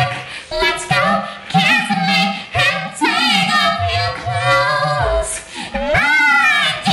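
A girl singing solo a cappella, loud, with wavering held notes and a rising note near the end.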